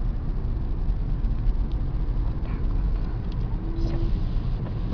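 Car driving at road speed, heard inside the cabin: a steady low engine and tyre rumble. A brief low steady tone sounds near the end.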